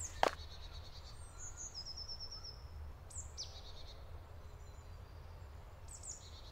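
Small songbirds calling faintly in woodland: a quick high trill about two seconds in and a few short falling notes later, over a low steady rumble of wind. A single footstep crunches on gravel just after the start.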